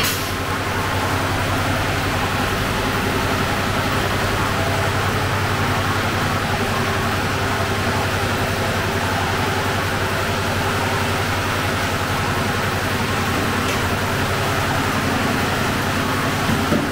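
Steady roar with a constant low hum from a sangak bakery's hot oven and its extractor hood, with a brief click at the start and a small knock near the end.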